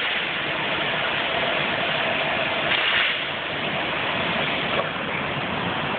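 Steady rushing noise with a faint, even motor whine in the first half, from the Milwaukee 18 V compact cordless drill driving the stool's wheels.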